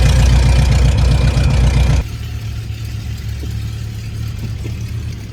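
Cessna Skyhawk's propeller engine idling on the ground while it warms up, the oil temperature not yet up to the mark: a steady low drone. Its level drops suddenly about two seconds in and the drone carries on quieter.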